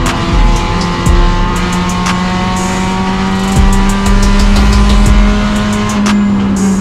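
Mercedes-AMG Cup race car's engine running hard at high revs, its pitch sagging slowly and then holding, with a few short knocks along the way.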